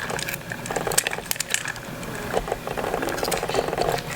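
Light clicks, taps and scraping of hands and a tool working at an iPhone 5's adhesive-bound battery, with a longer scraping or peeling stretch from about the middle to near the end.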